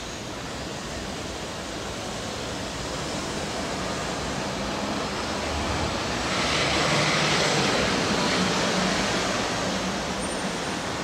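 Steady street traffic noise, swelling as a vehicle passes close about two-thirds of the way through, then easing off.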